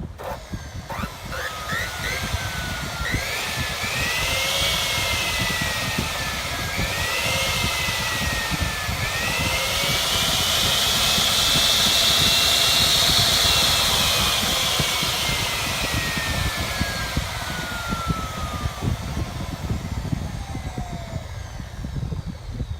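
305 mm aluminium cutting saw running, its motor and blade whine rising in pitch in steps over the first few seconds. The pitch dips and recovers a few times, with a harsh hiss swelling to its loudest around the middle. The whine then falls slowly over the last several seconds as the blade winds down.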